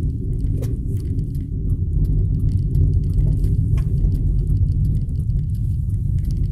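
Steady low rumble of a car's engine and tyres on the road, heard from inside the cabin while driving at low speed.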